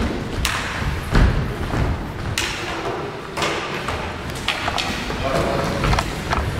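Floorball play on a wooden gym floor: several sharp clacks of plastic sticks striking the plastic ball, over thudding footsteps, echoing in the hall.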